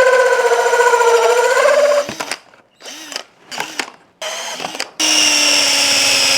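Hand-held electric power tool running with a steady motor whine that dips slightly as it takes load, then stops about two seconds in. A few short stop-start bursts follow before it runs steadily again at a lower pitch from about five seconds.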